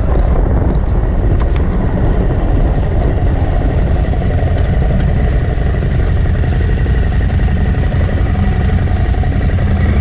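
Adventure motorcycle riding at a steady pace: the engine runs evenly without revving up or down, under a broad rushing noise.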